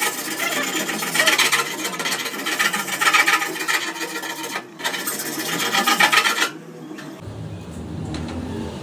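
Steady abrasive rasping on a car body panel, a rough rubbing or filing stroke, with a brief break a little before five seconds in. It stops about six and a half seconds in.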